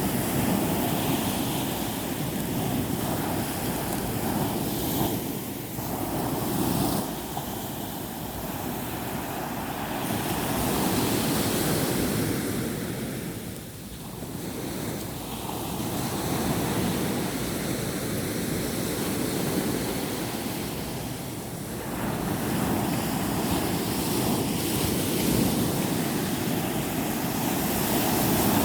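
Sea waves breaking and washing on a beach, the surf swelling and easing every few seconds.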